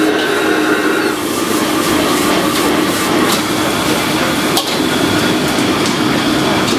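Stir-frying in a wok on a commercial wok range: a steady, loud rushing noise from the burners and extraction hood, with the metal ladle scraping and clanking against the wok. One sharp knock stands out about four and a half seconds in.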